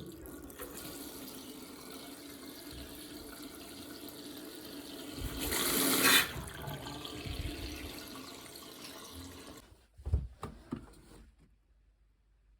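Water running out of a Worcester Greenstar combi boiler's opened diverter valve housing, where the flow turbine adapter has broken. It gets louder about halfway through and stops about three seconds before the end, as the water is shut off, followed by a couple of knocks.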